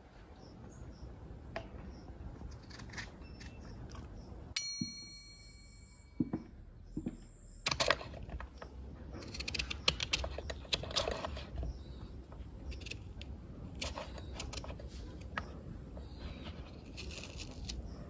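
Kitchen knife slicing peeled peaches on a wooden cutting board: irregular soft cuts and taps of the blade on the board, thickening over the second half. About four and a half seconds in there is a single bright metallic ding that rings and fades over a second or two.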